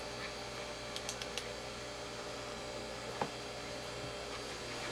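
A steady low machine hum, with a few faint ticks about a second in and a single short click a little after three seconds.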